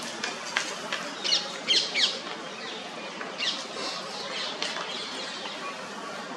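Birds calling: several sharp, high chirps that fall quickly in pitch, bunched about one to two seconds in and again about three and a half seconds in, over a steady background hiss with a few faint clicks.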